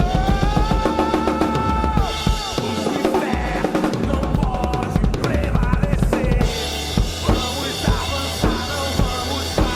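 A drum kit played with a recorded song, with kick drum and snare hits prominent over the backing melody.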